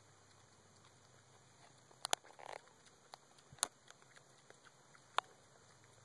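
An Ossabaw Island hog foraging for acorns in dry oak leaf litter: a faint rustle, with a few sharp cracks, a pair about two seconds in and single ones near three and a half and five seconds.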